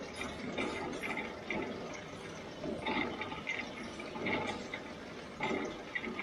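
Hay rushing and swishing as the Claas Variant 480 RC round baler's pickup tines and feed rotor sweep it in, heard close up at the pickup, with uneven louder surges every second or so as more crop comes through.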